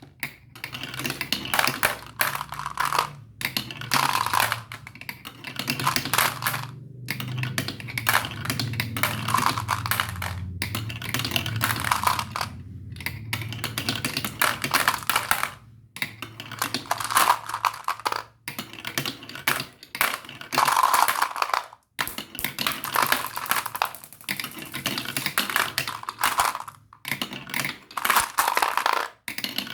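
Many marbles clattering and clicking as they roll down plastic marble-run tracks, a dense run of small hard clicks broken by a few brief gaps.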